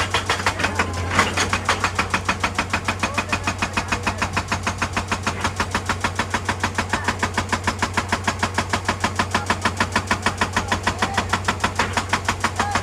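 Excavator-mounted hydraulic breaker hammering rock in a fast, even stream of blows, about eight a second, over the steady hum of the excavator's engine. The hammering stops at the very end.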